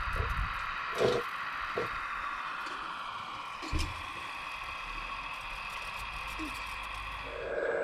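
Hydraulic pump of a radio-controlled model excavator whining steadily, dropping a little in pitch about halfway through, with a few light knocks of the machine working.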